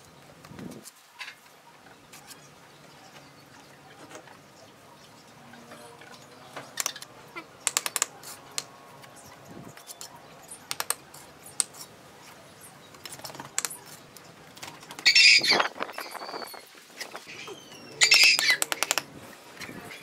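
Bricklaying with a steel trowel: scattered sharp taps and clicks as red bricks are set and knocked into wet mortar. In the second half there are two louder, harsh rasping bursts about three seconds apart.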